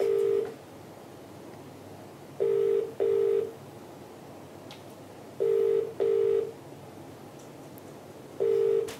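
Telephone ringback tone over a desk phone's speaker: the Australian double ring, two short low beeps repeated about every three seconds, meaning the called line is ringing and has not been answered. The tail of one double ring ends about half a second in, and three more follow.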